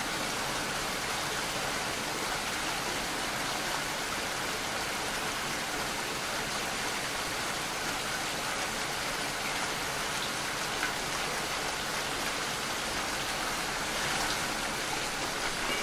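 Steady rain falling, with water dripping off the edge of a roof eave.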